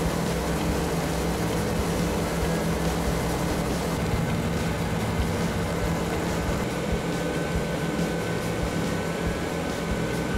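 Treadmill motor and belt running steadily, with a large LEGO car model's rubber tyres spinning on the moving belt while the car is held back by a string. A thin high whine comes in a little after halfway.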